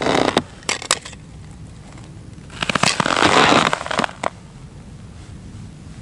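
Rustling of a winter suit and crunching of snow and ice underfoot as an angler crouched over an ice-fishing hole shifts his position: a few sharp clicks at the start, then a longer rustling crunch about three seconds in.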